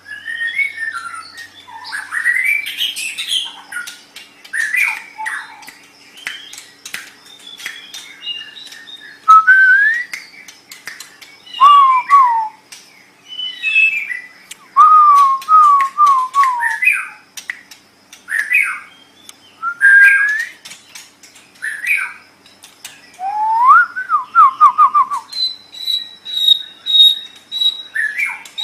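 White-rumped shama (murai batu) singing: short, varied phrases of clear whistles, rising glides and quick runs of repeated notes, separated by brief pauses.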